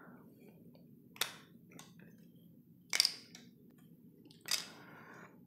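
Three short, sharp clicks, about a second and a half apart, as the plastic case of a Flysky FS-iA10B receiver is pried open with a small tool.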